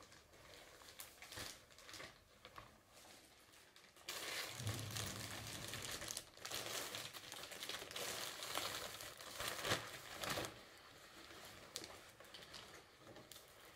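Plastic packaging bag crinkling and rustling as a latex garment is pulled out of it and unfolded; faint at first, louder and continuous from about four seconds in until about ten seconds, then softer again.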